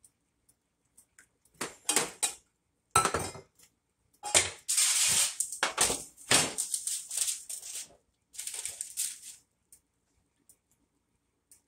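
Kitchenware clattering on an electric stovetop as measuring cups are cleared away and a parchment-lined baking sheet is set down: a run of clanks and scrapes starting about a second and a half in and ending a few seconds before the end.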